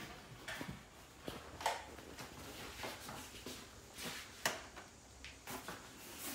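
Several light knocks and clicks with faint rustling between them, as of objects being handled and set down.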